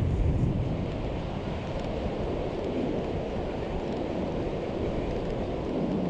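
Wind blowing across the microphone, a steady low rush without breaks.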